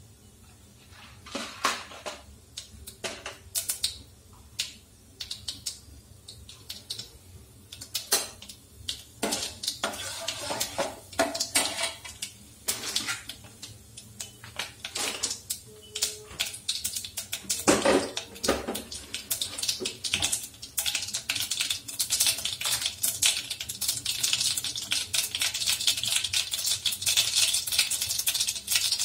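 Tempering in hot oil in a stainless steel pot: mustard seeds, cumin and chana dal crackling and sizzling, with scattered sharp clinks and scrapes of a steel slotted ladle against the pot. The sizzling grows steadily louder over the last several seconds.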